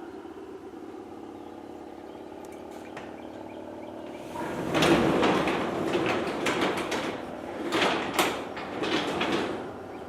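A vehicle engine idling steadily, then from about four seconds in a run of loud, irregular metal scraping and clattering.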